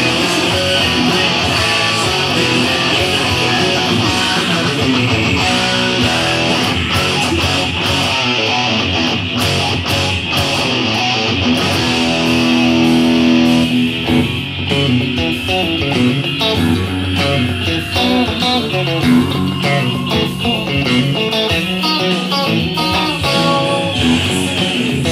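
Electric guitar played along with a full rock band recording, with a held chord about halfway through.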